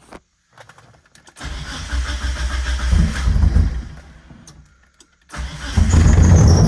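1997 Mitsubishi Eclipse GSX's turbocharged 4G63 four-cylinder being started. A first attempt about a second and a half in runs for a couple of seconds and dies away. A second attempt near the end catches, and the engine keeps running.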